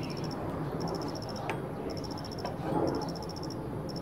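Steady low drone of an airplane, with a high insect chirp over it: short pulsed trills repeating about once a second.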